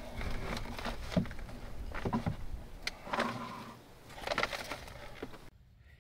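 Scattered light knocks, clicks and scrapes of hands handling parts under a cabin floor, over a low background rumble; the sound cuts off abruptly near the end.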